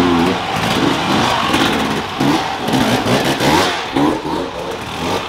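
Enduro dirt bike engines revving in short repeated throttle blips, the pitch rising and falling every half second or so, as the bikes ride past.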